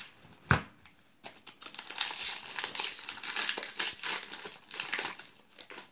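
Foil wrapper of a Magic: The Gathering booster pack crinkling and tearing as it is torn open by hand, after a single knock about half a second in.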